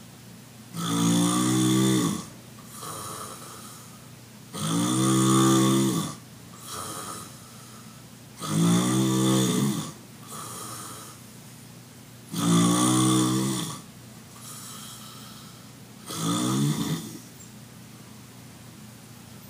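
A person snoring loudly: five snores about four seconds apart, each lasting over a second, with a quieter breath between them.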